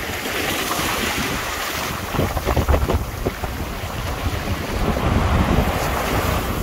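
Small waves washing up and foaming over a sandy beach, with wind buffeting the microphone in gusts that rumble loudest a couple of seconds in and again near the end.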